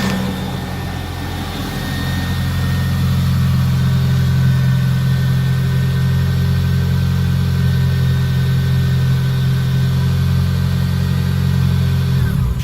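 The 1991 Nissan 240SX's 2.4-litre four-cylinder engine idling steadily, then cutting off suddenly near the end.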